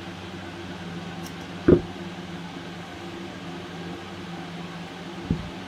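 Steady low mechanical hum in a small room, broken by two short knocks, the louder one about two seconds in and a softer one near the end.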